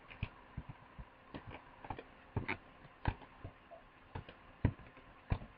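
Computer mouse buttons and keyboard keys clicking irregularly as a 3D model is moved in Blender, a dozen or more sharp clicks at uneven intervals, a few of them louder.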